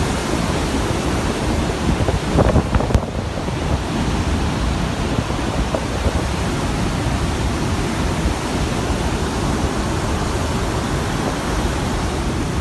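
Hurricane-force wind and storm-surge water rushing across a flooded street, a steady dense noise with wind buffeting the microphone, briefly louder about two and a half seconds in.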